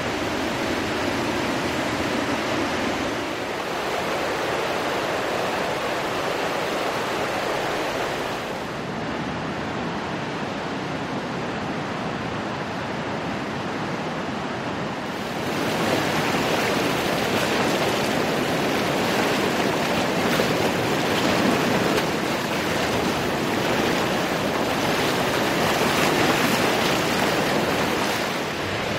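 Rushing of a river in flood, its churning muddy water making a steady noise that grows louder and brighter about halfway through.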